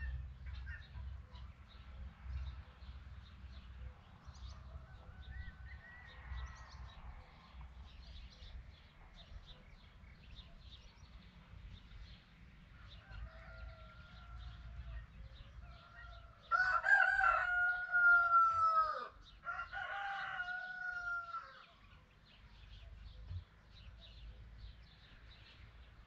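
Rooster crowing: one loud, drawn-out crow about two-thirds of the way in, with fainter crowing just before and after it. Faint small chirps and ticks run underneath.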